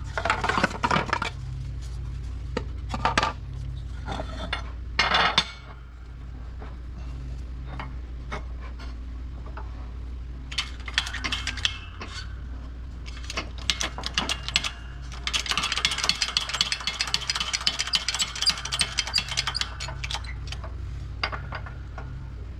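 Metal parts and tools clinking and clattering as they are handled, with a denser stretch of rattling about two-thirds of the way through, over a steady low hum.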